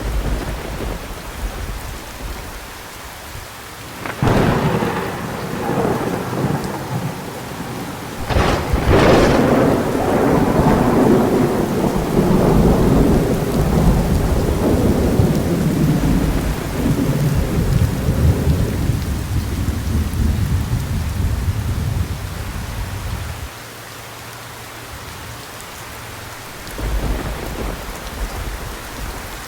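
Thunderstorm: steady heavy rain with rolling thunder. A sharp crack comes about four seconds in, then a louder double crack just after eight seconds rolls into a long low rumble that dies away some fifteen seconds later. Another rumble comes near the end.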